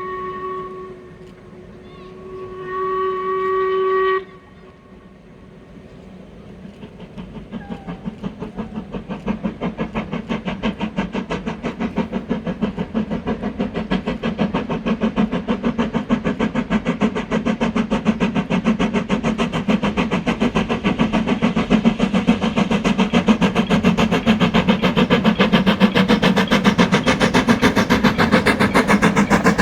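Steam locomotive's Stanier hooter whistle, a chord of several tones: one blast ends about a second in, then a second blast of about two seconds cuts off sharply. Then the train's steady rhythmic chuffing and rumble, growing steadily louder.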